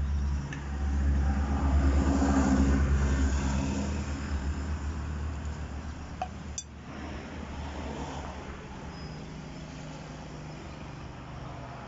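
A motor vehicle's engine running close by: a low hum that swells about a second in, is loudest for a few seconds, then eases to a steadier, quieter running. A single sharp click about six and a half seconds in.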